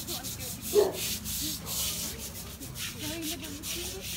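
Stiff brush scrubbing wet stone paving in quick repeated strokes, a scratchy rasping sound.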